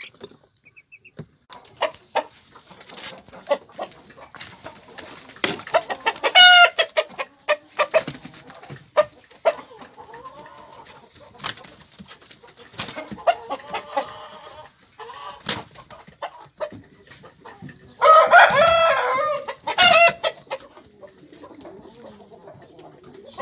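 Herati chickens clucking, with a few loud calls standing out: one about six seconds in, a longer one about eighteen seconds in and a short one just after.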